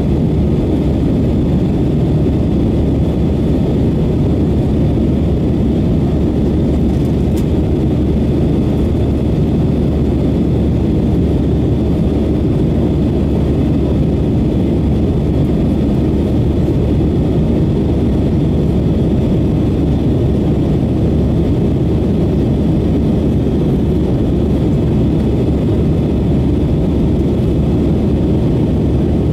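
Steady cabin noise of an Airbus A319 climbing after take-off: a low rumble of jet engines and airflow, heard inside the cabin from a window seat over the wing, with a faint steady high whine above it.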